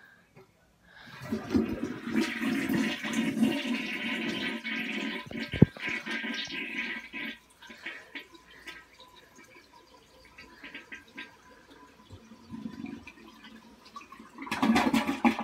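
A toilet flushed with its lever handle: the water rushes loudly for about six seconds, then drops to a quieter trickling and gurgling as the tank refills. A sharp click comes about five and a half seconds in, and a short louder burst of noise near the end.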